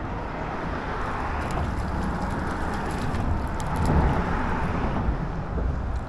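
Road traffic on the overpass overhead: a steady low rumble and hiss of passing vehicles, swelling as one goes over about four seconds in.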